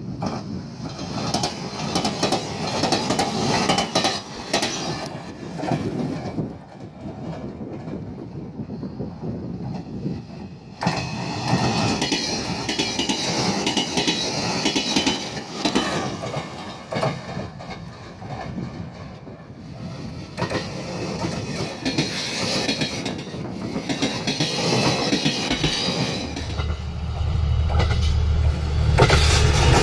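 A train running on the rails, its wheels clattering over the rail joints. A steady low hum comes in near the end.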